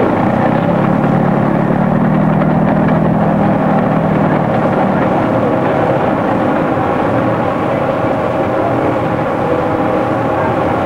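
Heavy workshop machinery running steadily, a dense mechanical din with several steady hum tones. A deeper hum is strong through the first half and drops away about five seconds in.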